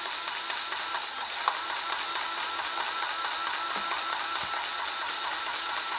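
Powered grease gun running steadily with a fast, even pulse, pumping grease through its hose into the track adjuster of a Kubota KX71-3 mini excavator to tension the rubber track. A single sharp click about one and a half seconds in.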